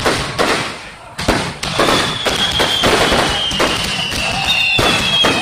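Aerial fireworks shells bursting in quick succession: a dense barrage of sharp bangs with crackling between them. From about two seconds in, high whistles sound over the bangs, each falling slightly in pitch.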